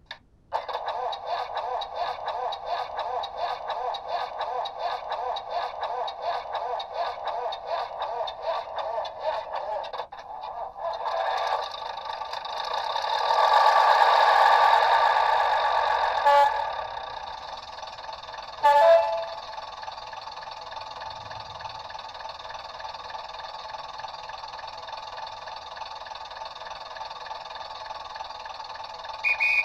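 Sound-fitted OO-scale Class 101 DMU model playing diesel railcar engine sounds through its small onboard speaker. A rhythmic pulsing idle gives way to a loud swell as the engine revs, then two sharp knocks and a steadier running drone. A brief high tone sounds near the end.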